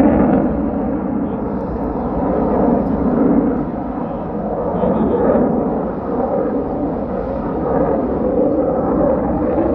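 Sukhoi Su-57 fighter jet's engines heard from the ground during a display flight: a loud, continuous rushing rumble that swells and dips as the aircraft manoeuvres.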